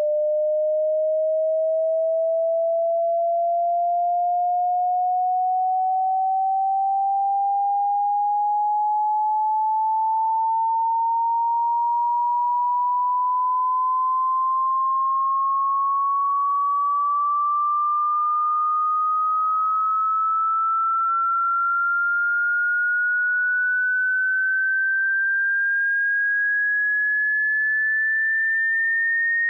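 A single pure sine tone gliding slowly and evenly upward in pitch at a steady loudness, from a mid pitch to a noticeably higher one: a hearing-test frequency sweep for finding which pitches match a listener's tinnitus.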